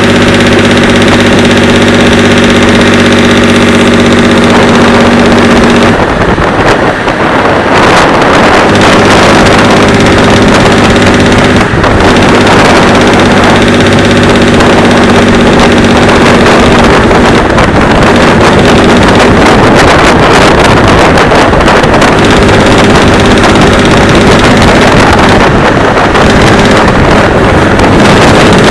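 Vehicle engine running at a steady pitch, mixed with wind noise, heard from inside the moving vehicle. The steady pitch breaks up for a couple of seconds about six seconds in, and again briefly a few seconds later.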